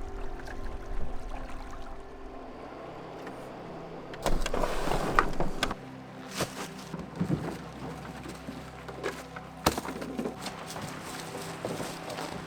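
A canoe and its gear being handled at the start of a portage: a brief scraping rush about four seconds in, then several sharp knocks.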